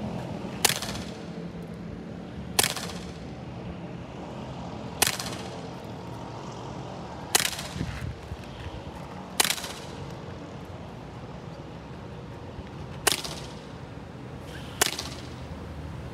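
Airsoft pistol fired seven times, sharp single shots a couple of seconds apart, with a longer pause before the last two.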